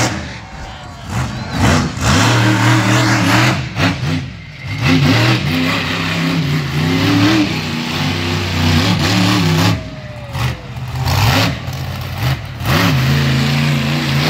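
Monster truck engine revving hard, repeatedly rising and falling in pitch as the truck launches off a jump and drives around the dirt arena.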